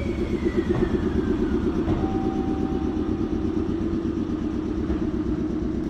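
A JR East 719 series electric train on the next track pulling away, with a steady low rumbling hum and a thin whine that falls slowly in pitch.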